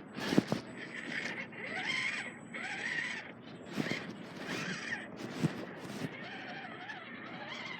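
Radio-controlled truck's electric motor whirring, its pitch rising and falling with the throttle, with a thin high whine and a few sharp knocks as the truck climbs over rough ground.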